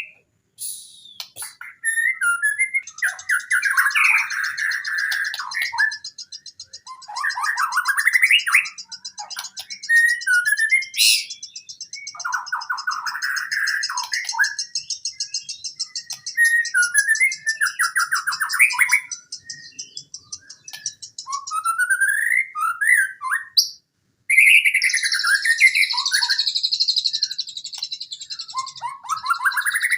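White-rumped shama (murai batu) singing loud, fast, varied whistled phrases in a long run of song. A steady high buzzing trill runs above the song for much of the time, breaking off once for a moment about two-thirds of the way through.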